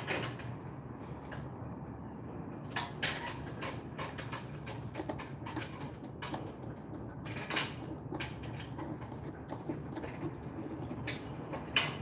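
Scattered clicks and light knocks of hands and tools working at the terminal blocks of an elevator control cabinet, over a steady low hum.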